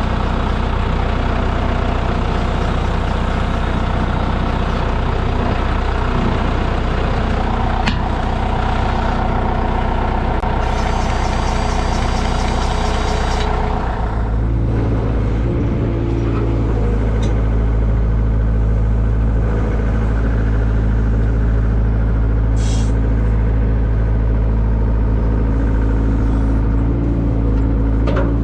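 John Deere 6410 tractor's diesel engine running steadily as the tractor is driven along. About halfway through, the engine note changes: the higher sounds fade and the low rumble gets stronger.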